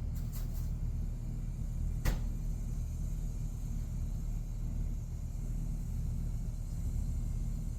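Hot air gun running steadily with a low motor hum, heating an aluminium chainsaw crankcase. A few light clicks come near the start and one sharp click about two seconds in.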